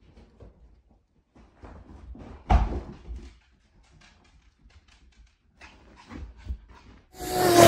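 A chihuahua shifting and scrambling on a plush faux-fur blanket: soft rustling and scuffing, with one sharp thump about two and a half seconds in and more scuffling as it leaps across the bed. Near the end a much louder sound with a held pitch begins.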